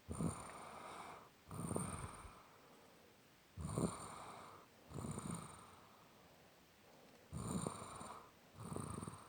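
Snoring with a steady breathing rhythm: six rasping snores in three pairs, the two of a pair about a second and a half apart, with a quiet gap of about two seconds before the next pair.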